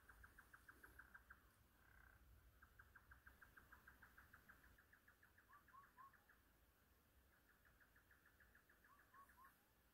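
Very faint animal calls: a rapid pulsing trill repeated in three bouts, with two short runs of three quick chirps.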